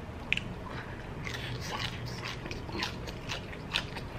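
Close-miked eating sounds of a man chewing and biting cheese-covered fried onion rings: a sharp click about a third of a second in, then scattered wet clicks and crackles of chewing from about a second in.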